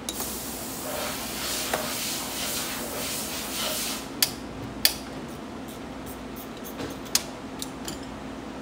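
A spraying hiss for about four seconds, then a series of sharp metallic clicks and clinks, like small metal parts being knocked and set down.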